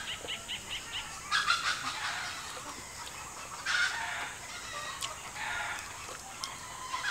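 Domestic chickens calling, including a rooster crowing, with three calls a couple of seconds apart over a steady high-pitched hiss.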